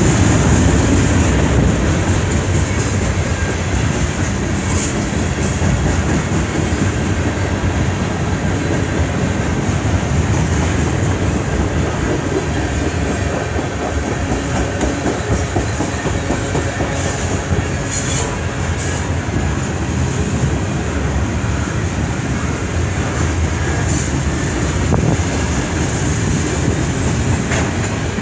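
CN freight train's cars rolling past, a steady loud rumble of wheels on rail with clickety-clack. A thin high ringing from the wheels runs throughout, and a few sharp clanks come at about 5, 18, 24 and 27 seconds.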